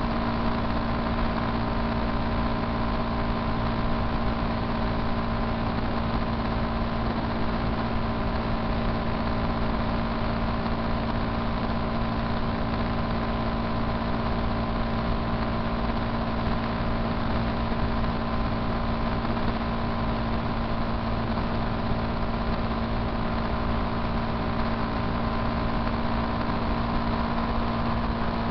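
Motorcycle engine running at a steady cruising speed on the highway, its note holding constant with no change of revs, under a steady rush of wind and road noise.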